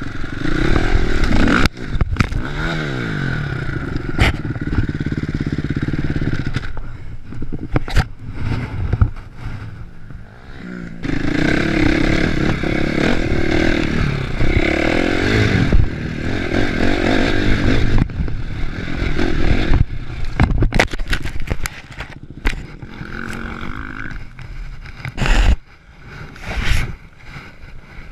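KTM 450SX single-cylinder four-stroke dirt bike engine, heard from on the bike, revving up and down with the throttle as it rides over a rough dirt track, with knocks and scrapes from the bike and ground. Near the end the engine sound breaks up into sharp knocks and scrapes as the bike goes down in a crash.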